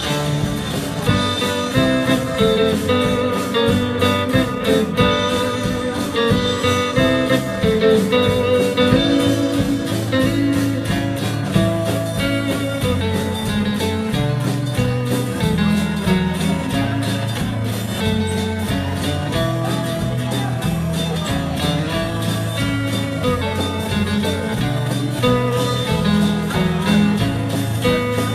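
Live band playing a guitar instrumental in early-1960s style: electric lead guitar carrying the melody over rhythm guitar, electric bass and a steady drum beat.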